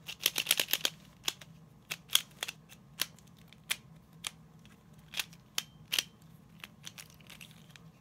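Plastic clicks of a Pyraminx puzzle being twisted by hand: a quick run of clicks in the first second, then single clicks every half second or so.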